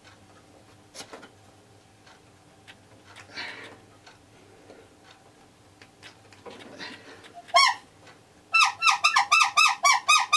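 Replacement motorcycle bulb horn with a freshly fitted rubber bulb, squeezed by hand: faint rubbing of the rubber as the bulb is worked on, then one short squeaky honk, then a quick run of about ten squeaky honks, roughly five a second, near the end.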